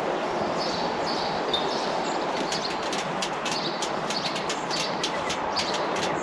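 Small birds chirping over a steady rush of background noise. From about two seconds in there is a run of quick ticks.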